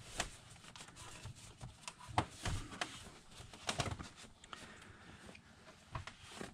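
Cloth rag rubbing over a chainsaw's housing, with occasional light knocks and clicks as the saw is handled and turned on the bench.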